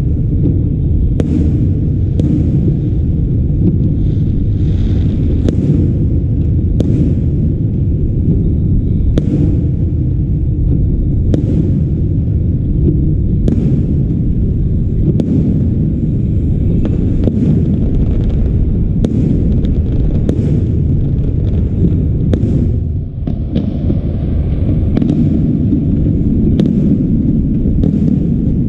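Aerial fireworks display: many shells bursting in quick, irregular succession, with sharp bangs over a steady low rumble.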